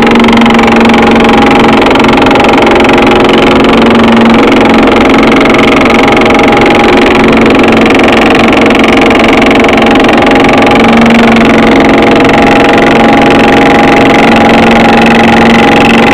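Belt-driven Yager 11-inch thickness planer running steadily with a loud machine hum and whine.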